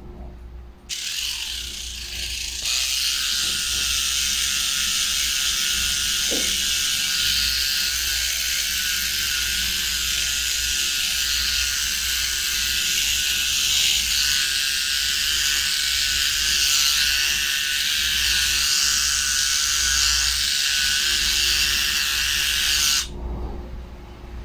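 Small battery-powered pen-style electric trimmer buzzing steadily as it trims a dog's ear hair, switched on about a second in and cut off about a second and a half before the end.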